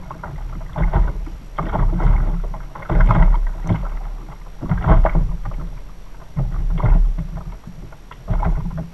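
Sea water slapping and sloshing against a fishing kayak's hull in choppy swell, in irregular surges every second or two, with wind rumbling on the microphone.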